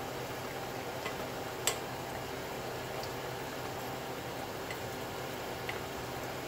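Wooden spatula stirring food in a stainless steel pot, knocking against the pot a handful of times at uneven intervals, the loudest knock a little under two seconds in, over a steady background hum.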